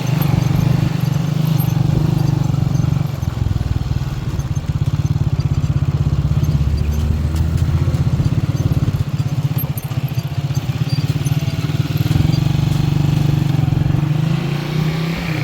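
An engine running steadily at an even speed, with a dense rapid firing pulse.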